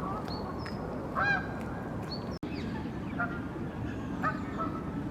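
Geese honking: a few short calls, the loudest about a second in, over a steady low background rumble.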